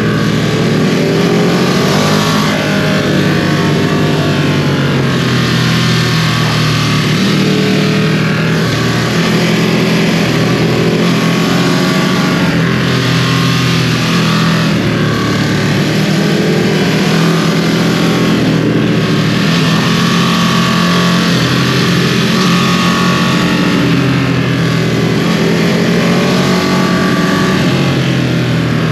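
2022 Ducati Streetfighter V2 motorcycle's 955 cc twin-cylinder engine, on its stock exhaust, running hard at speed, its pitch rising and falling with the throttle. Heavy wind and road rush sits under it, easing off briefly every few seconds.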